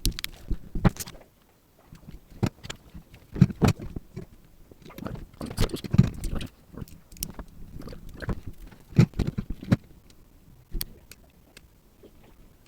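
Irregular clicks, taps and knocks of small hard parts and tools being handled on a workbench, with a short pause a little over a second in.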